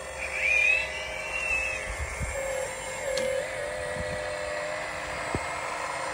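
Radio-controlled model excavator's electric motor whirring steadily as it digs and loads soil, with a louder rising whine about half a second in.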